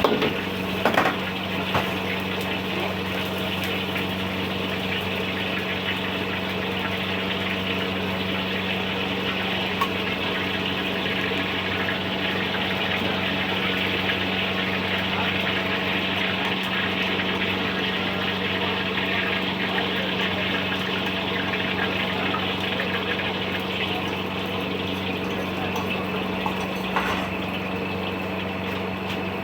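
Kwetiau flat rice noodles stir-frying with a steady sizzle over a constant low hum, with a few sharp knocks near the start, about ten seconds in and near the end.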